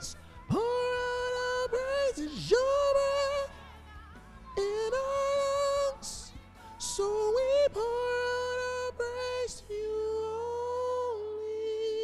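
A soprano voice singing the soprano line of a gospel worship song: a run of long held notes, sliding up into several of them, over faint low accompaniment that drops away near the end.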